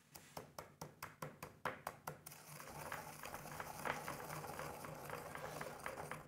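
Fennel seeds being crushed with a pestle in a small mortar: a quick run of pounding taps, about six a second, for roughly the first two seconds, then steady grinding.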